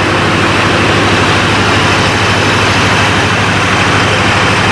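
Heavy diesel engine idling steadily: a low, even rumble with a broad hiss over it.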